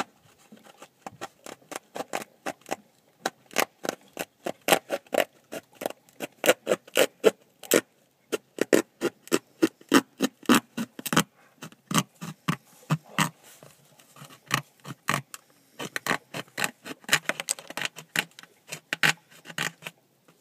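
Hand-held jigsaw blade sawing through the hard, hollow shell of a dried gourd, cutting a martin entrance hole: a long run of quick, rasping back-and-forth strokes, a few a second, broken by brief pauses.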